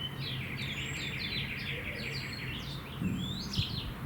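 Small birds chirping, one giving a fast run of falling chirps, over a steady low hum. About three seconds in, a couple of short, dull knocks.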